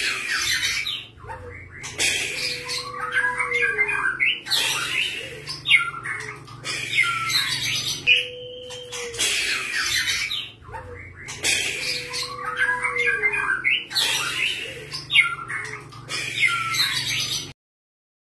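Juvenile white-rumped shama calling: harsh rasping calls mixed with twittering phrases and a low whistled note that bends downward, the same sequence coming round every few seconds. It cuts off suddenly near the end.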